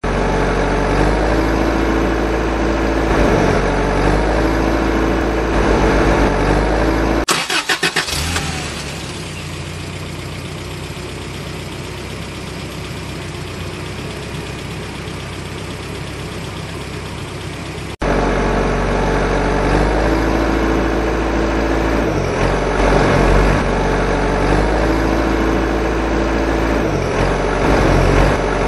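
Motor vehicle engine running and revving, most likely an engine sound laid over toy trucks. About a quarter of the way in there is a short run of rapid pulses. A quieter, steadier engine sound follows and cuts off suddenly about two thirds of the way through, and the louder, revving engine comes back.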